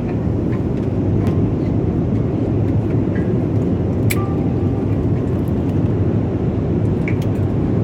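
Steady cabin noise of an airliner, a constant low rumble of engines and airflow, with a single sharp click about four seconds in.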